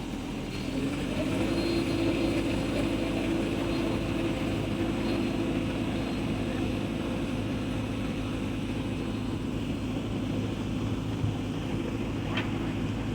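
Heavy earthmoving machine's diesel engine running under load, getting louder about a second in and then holding steady, with a single short knock near the end.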